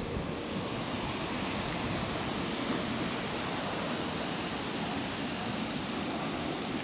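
Steady, even hiss of outdoor background noise, with no distinct sound standing out.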